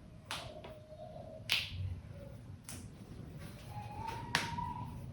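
Sharp snaps and slaps from a barber's hands during an Indian head massage: about five at uneven spacing, the loudest near the middle and near the end. A faint held tone sounds twice underneath.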